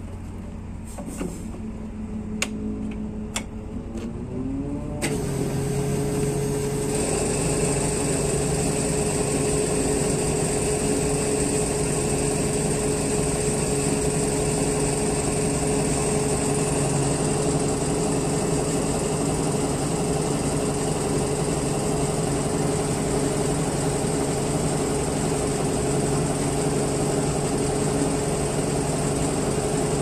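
A few sharp clicks, then an engine speeds up about four seconds in and runs on at a steady raised speed with a steady hum, as diesel is pumped into a bulldozer during refuelling.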